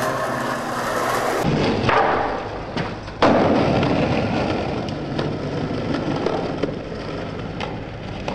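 Background music cuts off about a second and a half in, giving way to a skateboard's wheels rolling on asphalt. A loud thud of the board hitting the ground comes about three seconds in, then the rolling goes on with a few lighter knocks.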